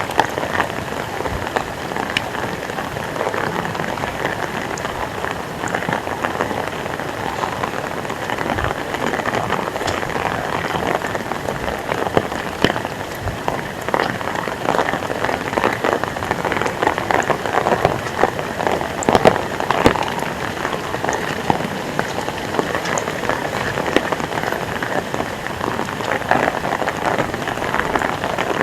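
Heavy rain falling steadily, a dense hiss of rain with many close drips and splashes.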